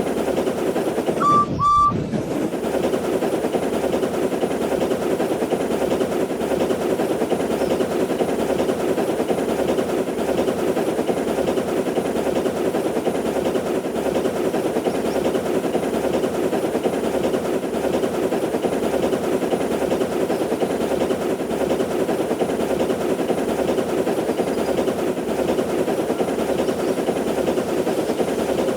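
A train running with a steady, rapid clatter throughout. About a second and a half in, the clatter briefly drops out and two short high toots of a whistle sound.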